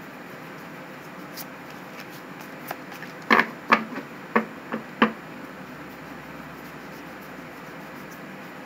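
Tarot cards being shuffled by hand, with a quick cluster of sharp card taps and clacks between about three and five seconds in.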